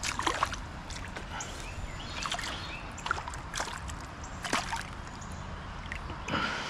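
Hand and a small fish splashing in shallow river water: a few light, irregular splashes over the steady rush of the river.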